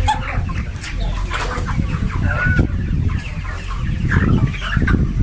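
A large flock of broiler chickens clucking and calling over one another, many short overlapping calls, over a steady low rumble.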